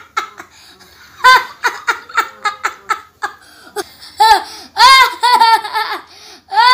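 Laughter sound effect: several bouts of high-pitched laughing, each a quick run of short 'ha-ha' pulses, separated by brief pauses.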